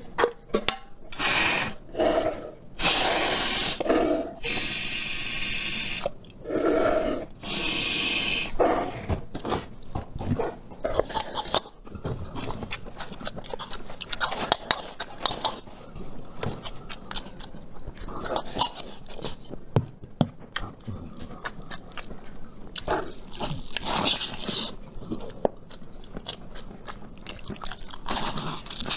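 Close-miked eating: long, loud slurping and sucking noises through the first several seconds, then a steady run of wet chewing, smacking and crunching.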